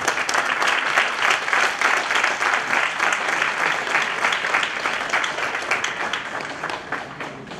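Audience applauding, dense clapping that starts abruptly, is loudest in the first couple of seconds and gradually thins out near the end.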